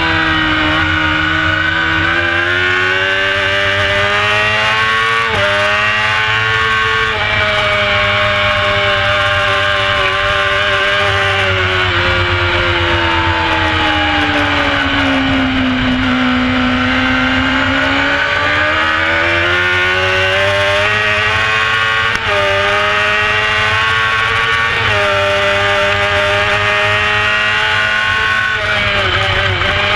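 Onboard sound of a carburetted Honda CBR600 F4 inline-four racing at full throttle: the engine note climbs and drops sharply at each upshift, sinks in a long dip about halfway through as the bike slows for a corner, then climbs through the gears again.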